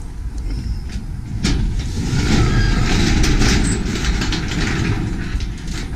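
A sectional overhead garage door rolling open, rattling and clattering in its tracks for about three and a half seconds after a sharp clack about a second and a half in. Wind rumbles on the microphone throughout.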